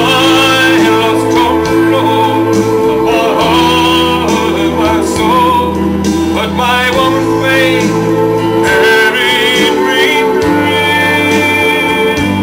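Country ballad instrumental break: sustained bass notes under guitar lines that slide and waver in pitch.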